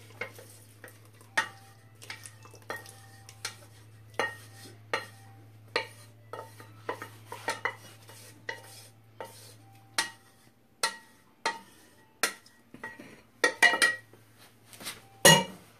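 Wooden-handled spatula scraping and knocking inside a stainless steel saucepan, emptying the hot ketchup mixture into a bucket. There are about one or two strokes a second, the pan ringing briefly with some of them, and a quick run of louder knocks near the end.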